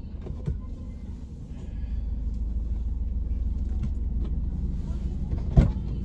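Suzuki car idling, heard from inside the cabin, with small rustling sounds as a passenger climbs into the back seat. One sharp thump near the end.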